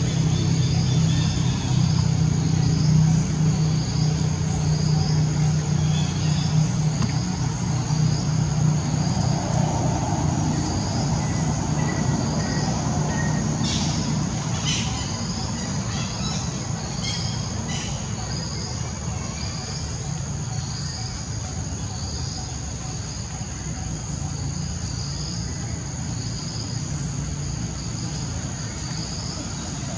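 Outdoor ambience: insects droning steadily, with a chirp repeating a little more than once a second, over a low engine hum that slowly fades away.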